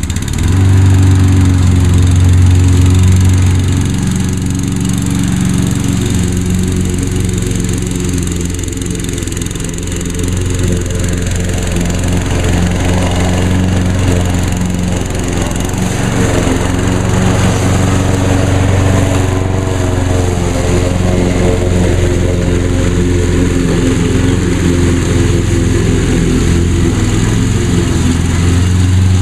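Briggs & Stratton engine of a 2010 Craftsman EZ2Walk push mower running steadily at working speed, having just started. Its level dips a little for several seconds early on, then holds.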